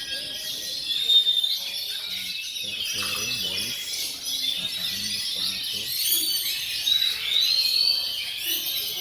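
Several oriental magpie-robins (kacer) singing at once: overlapping whistled phrases, chirps and rising and falling trills, with a faint murmur of voices underneath.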